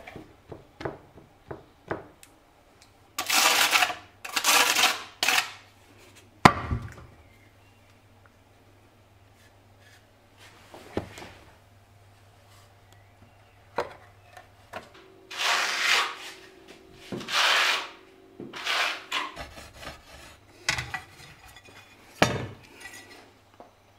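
Setting ceramic wall tiles: short scraping and rubbing strokes of tile against tile adhesive on the wall, in bursts, with one sharp knock about six and a half seconds in.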